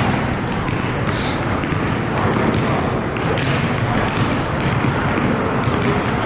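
Basketball dribbled on an outdoor asphalt court, a few bounces over steady background noise.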